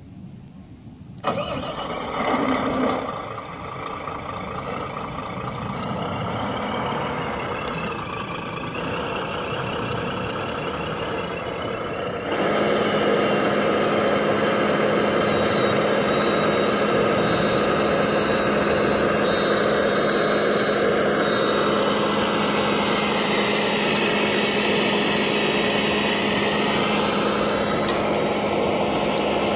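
A 1/14-scale RC dump truck running, with an abrupt engine-like start about a second in. From about twelve seconds a louder steady hum sets in, with a high whine that falls in pitch, as a 20 kg standard servo lifts the loaded steel dump bed.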